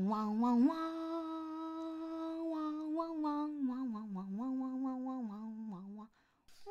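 A single voice humming a short, slow tune, with a few long held notes that step up and down, stopping about six seconds in.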